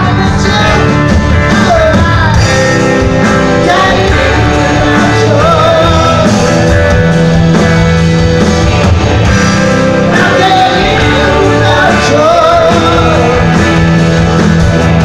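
Live rock band playing at full volume: electric guitars, bass, drum kit, keyboards and violin.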